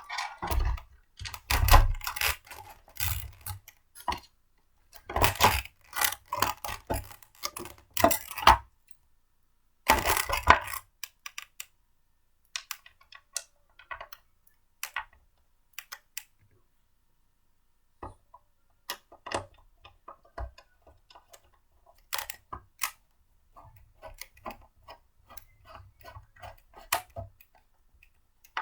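Blender parts being handled and fitted together: a run of clicks, knocks and clatters, busiest in the first ten seconds or so, then sparser, lighter taps.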